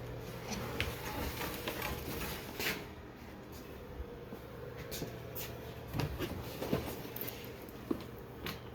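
A scatter of light knocks and clicks, a few louder ones in the second half, over a steady low hum.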